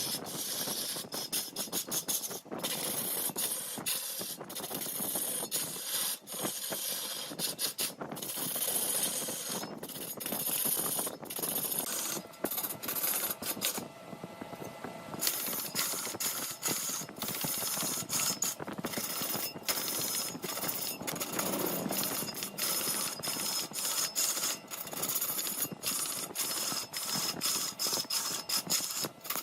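Giant wood lathe spinning a log while a turning tool cuts into the wood: a continuous hissing, scraping cutting noise broken by many brief gaps.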